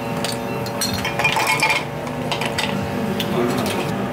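Ice cubes poured from a metal ice scoop into glass mugs, clinking against the glass and each other in a run of sharp clinks.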